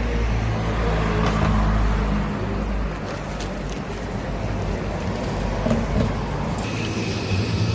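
City street traffic: a motor vehicle's engine running close by over road noise, with a steady high whine setting in near the end.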